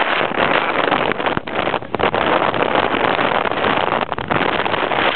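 Strong wind buffeting the camera microphone: a loud, rushing noise that dips briefly now and then.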